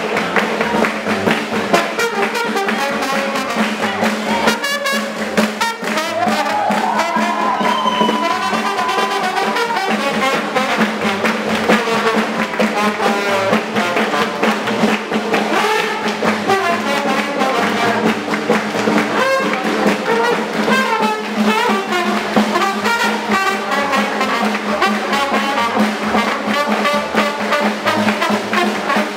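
A live small swing jazz combo of clarinet, trombone, guitar or banjo, double bass and drum kit plays an up-tempo number with the trombone to the fore. A horn line slides up about six seconds in and holds a high note.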